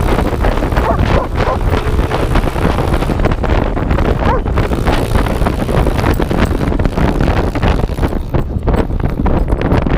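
Wind buffeting the microphone of a camera rig strapped to a running dog, with dense irregular knocks and rustle as the rig bounces and bumps against the dog's back. A Honda XR100 dirt bike's small single-cylinder four-stroke engine runs alongside.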